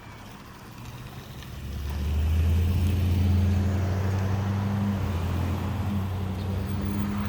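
A motor vehicle engine running close by: a low, steady hum that swells in about a second and a half in and holds, easing slightly toward the end.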